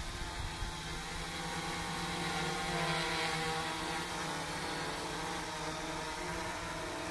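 DIY quadcopter's brushless motors and propellers whirring steadily as it hovers low, holding a steady pitch. The whir grows louder around three seconds in as the drone drifts closer, then eases back.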